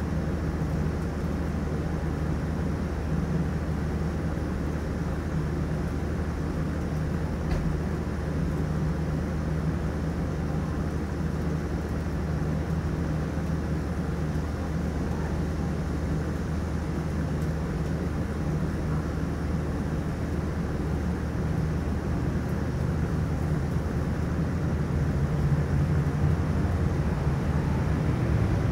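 Steady low hum of a running vehicle engine, unchanging, a little louder near the end.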